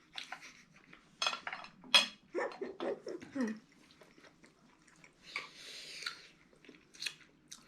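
Mealtime sounds: scattered light clicks and taps of dishes and cutlery, with chewing and a brief murmured voice.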